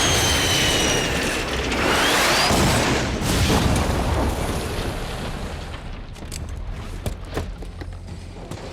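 Film action sound effects: a loud rushing blast with falling whines at the start and a short rising whine about two seconds in, fading into a low rumble with a few sharp knocks near the end.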